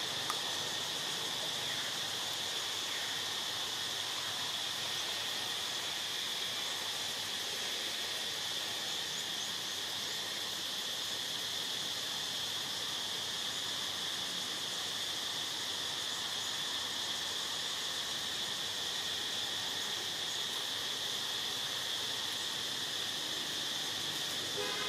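Steady, unbroken high-pitched insect drone over an even hiss of forest ambience.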